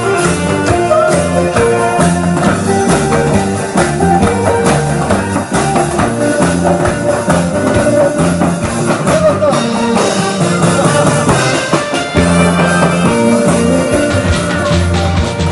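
Upbeat Korean trot-style song playing, with drums, a repeating bass line and guitar.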